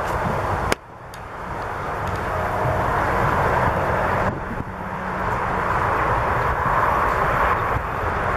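Steady din of interstate highway traffic, a wash of tyre and engine noise. It drops off sharply just under a second in and swells back over the next couple of seconds.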